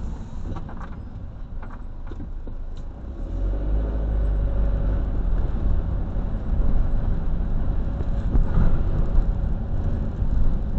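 Engine and road rumble inside the cab of a moving vehicle, growing louder about three seconds in as it pulls away and picks up speed. A few light clicks in the first three seconds.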